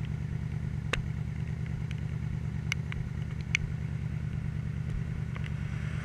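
2006 Yamaha Royal Star's V4 engine running steadily at cruising speed, with a few short sharp ticks over it.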